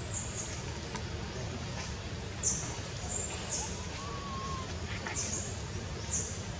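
Forest ambience with small birds giving many short, high chirps that fall in pitch, about two a second, over a low steady hum; a soft whistled note comes about four seconds in.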